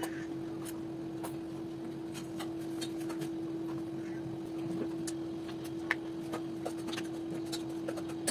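A steady, even hum holding one pitch, with scattered faint clicks and taps over it.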